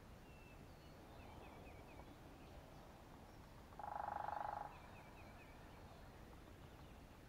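A frog gives one short pulsed trill, a bit under a second long, about halfway through. Faint high chirps run in the background.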